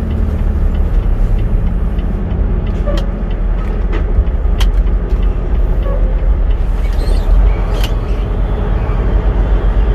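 Semi-truck's diesel engine running with a steady low drone, heard from inside the cab as the truck moves slowly, with a few faint clicks now and then.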